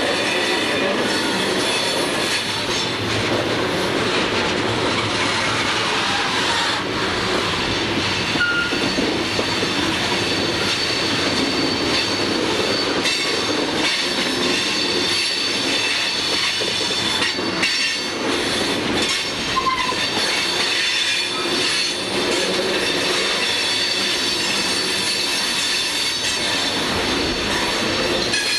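CSX open-top hopper cars rolling past on a curve: a steady rumble of steel wheels on rail with repeated clicks over the rail joints and a thin, high wheel squeal throughout, with a few brief lower squeals.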